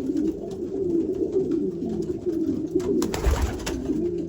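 Several racing pigeon cock birds cooing at once, their calls overlapping without pause, as the cocks compete over nest boxes. About three seconds in comes a short noisy flurry with a thump.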